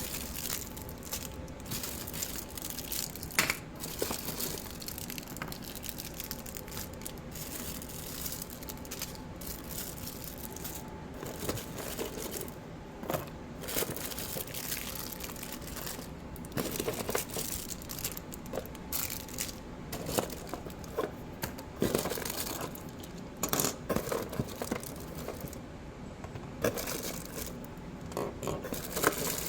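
Small plastic fidget toys and their plastic packaging being handled: crinkling and rustling with irregular clicks and clatters throughout.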